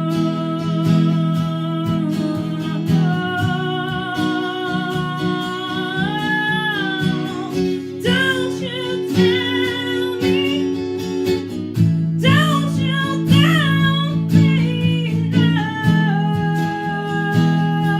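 A band playing a song: strummed guitar chords with a steady beat and a melody line over the top.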